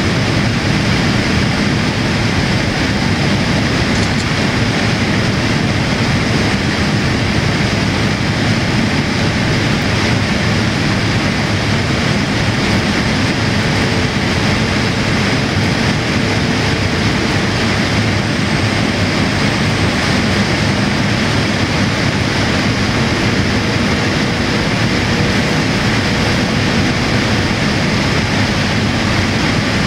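Steady in-flight cabin noise inside a Boeing 787-8, the rush of airflow over the fuselage together with the drone of its Rolls-Royce Trent 1000 engines, unbroken throughout.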